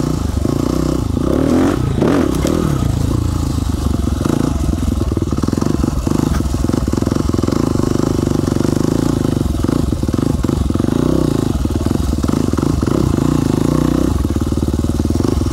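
Husqvarna dual-sport dirt bike engine running steadily as the bike is ridden over rough forest ground, the revs shifting a little with the throttle, with short knocks and clatter from the bike over bumps.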